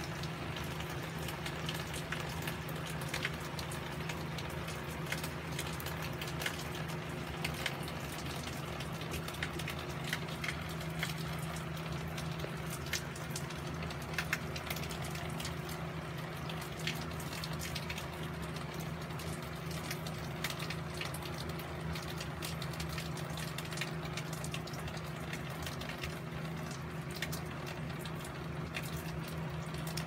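Steady rain falling, with single drops ticking at irregular moments throughout.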